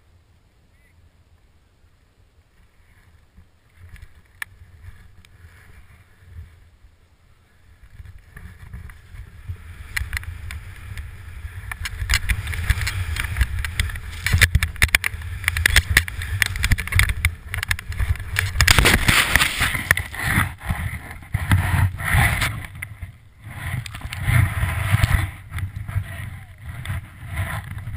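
Wind rushing over the camera and skis running through deep powder snow, faint at first and building from about eight seconds as speed picks up. In the last third come louder, rough thumps and the rush of snow as the skier goes over and tumbles in the powder.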